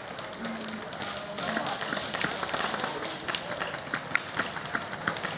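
Scattered airsoft gunfire: many irregular sharp clicks and pops from several guns, some overlapping.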